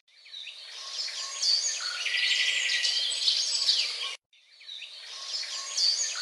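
Birdsong ambience: several birds chirping, with a rapid trill, over a steady hiss. It fades in, cuts off abruptly about four seconds in, then the same stretch starts again, fading in: a looped birdsong recording.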